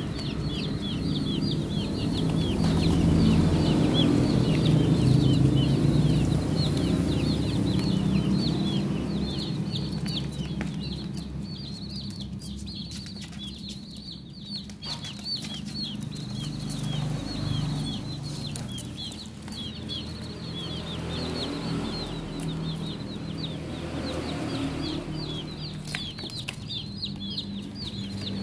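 A flock of baby chicks peeping non-stop, a dense stream of short, high, falling chirps. Underneath there is a low hum, loudest in the first several seconds, and scattered light taps.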